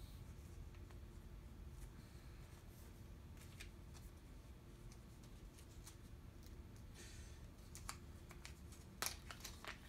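Quiet room with a steady low hum and the faint clicks and rustles of small electronic parts and their plastic packaging being handled on a workbench. A quick cluster of sharper clicks comes near the end.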